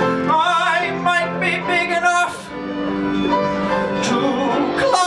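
Musical-theatre song performed live: sung notes with vibrato over a steady instrumental accompaniment.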